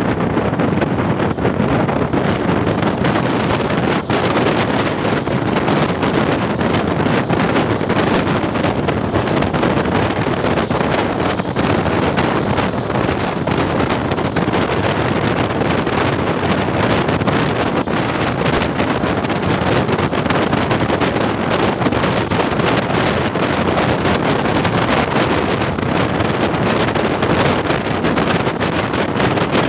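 Steady running noise of an ICF passenger coach moving at speed, mixed with wind buffeting the microphone.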